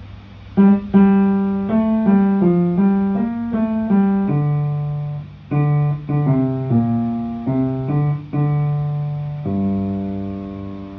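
Piano playing the hymn's final Alleluia refrain: two phrases of chords and notes, then a held final chord that slowly dies away.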